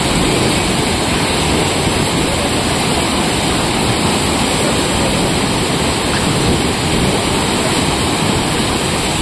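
Muddy floodwater pouring over a low weir wall and churning in the channel below: a loud, steady rush of falling water from a stream swollen by heavy rain.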